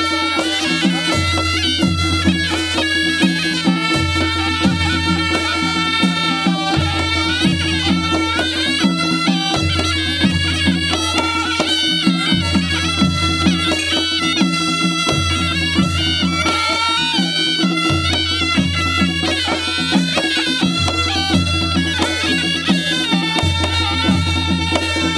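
Live panche baja ensemble: brass-belled shehnai pipes play a reedy, bagpipe-like melody over a steady held low note, while a dholaki barrel drum and a damaha kettle drum beat a repeating rhythm.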